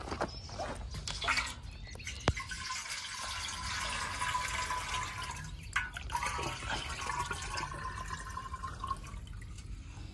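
Water gurgling and bubbling into a steel pot held under a pond's surface as the air escapes from its mouth, starting about two seconds in and dying away near the end.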